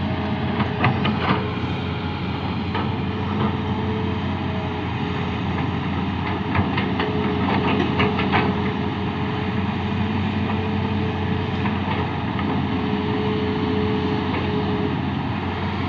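Excavator engine running steadily, with short bursts of clattering knocks about a second in and again around the middle.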